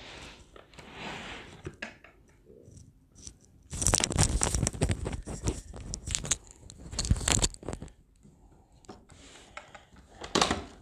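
Paper rustling and crinkling in irregular bursts as a printed prayer booklet is handled and opened, loudest through the middle few seconds, with small knocks mixed in.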